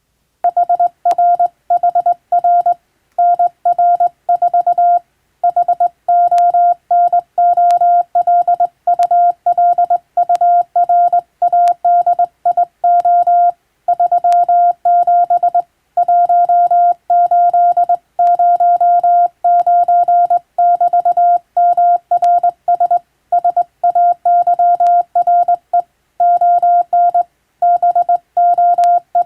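Hand-keyed Morse code: a steady single-pitched beep tone switching on and off in short and long elements, grouped into letters and words with brief pauses between them, at the uneven rhythm of a human fist.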